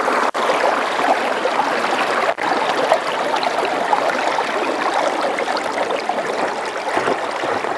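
Steady rush of moving water from a small inflatable fishing boat's wake as it runs at full power, broken by two brief dropouts in the first few seconds.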